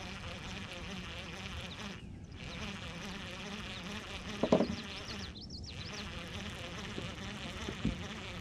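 Baitcasting reel being cranked steadily as a crankbait is retrieved, a fast whirring buzz, with one brief louder knock about halfway through.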